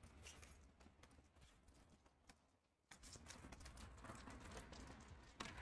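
Near silence, with a few faint scattered clicks and ticks that die away almost completely for a moment before picking up again.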